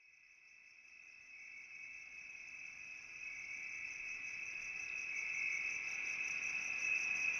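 Insect chorus, like crickets: a steady, shrill, high trill that fades in from silence and grows louder throughout.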